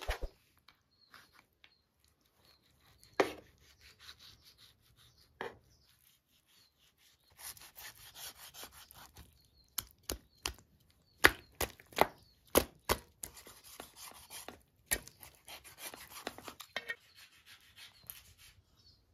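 A large knife chopping and cutting raw lamb ribs on a round metal tray: sharp knocks of the blade, a quick run of them about halfway through, with stretches of the blade slicing and scraping through the meat in between.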